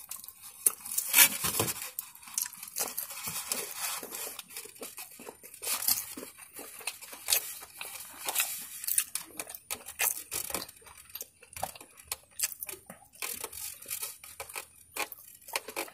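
Close-up eating sounds: crispy fried chicken being bitten, torn off the bone and chewed, a run of irregular crunches and crackles.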